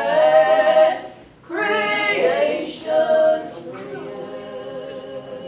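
Two women singing a gospel song together in harmony, with a short breath break about a second in; after about three and a half seconds the singing grows quieter.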